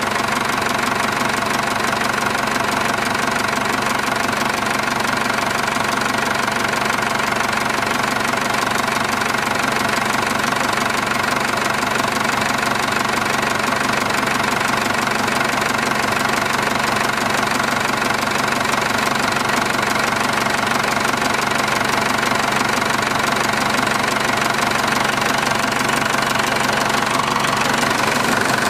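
Massey Ferguson 590 Turbo diesel tractor engine idling steadily with a knocking diesel clatter, still warming after a cold start in frost.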